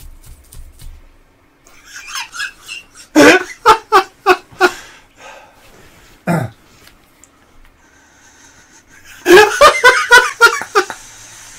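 Men laughing in two bouts: a run of loud, rhythmic laughs about three seconds in, then a hearty laugh near the end. A single short vocal sound falls between them.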